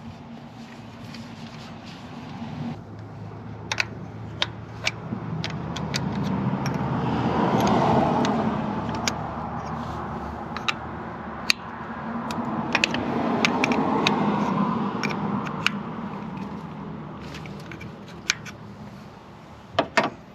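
Two vehicles pass by, each swelling and fading over several seconds, about eight and fourteen seconds in, over a steady low hum, with scattered sharp metallic clicks and clinks of hand tools and parts.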